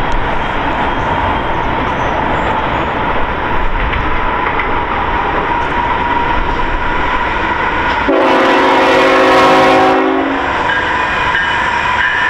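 Freight train rolling past with steady wheel-on-rail rumble and a thin steady ring. About eight seconds in, the oncoming CN 3082 locomotive sounds its air horn, one chord held for about two and a half seconds.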